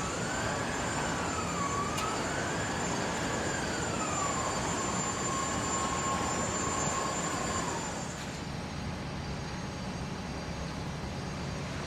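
Emergency vehicle siren wailing, its pitch rising and falling, then holding one steady note before cutting off about eight seconds in, over steady traffic noise.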